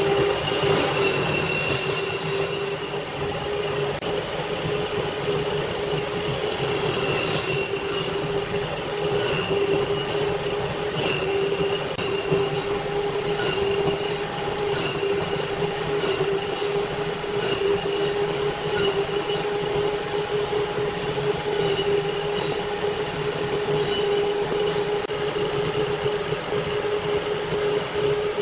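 A power woodworking machine running steadily with a constant whine over a noisy hiss, with scattered sharp ticks as it works wood.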